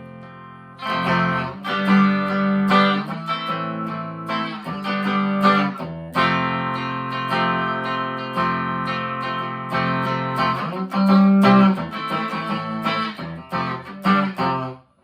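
Harley Benton TE-25th Telecaster-style electric guitar played clean through a Marshall MG15 amp: strummed chords and picked notes ringing out. It starts about a second in and cuts off suddenly near the end.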